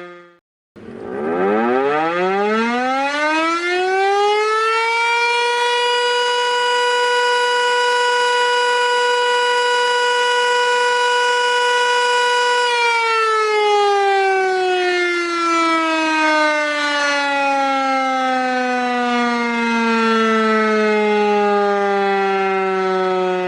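Loud siren. A previous wail fades out at the start; after a brief gap a new one winds up from a low pitch over about four seconds, holds one steady pitch for about eight seconds, then slowly winds down in pitch for about ten seconds before cutting off.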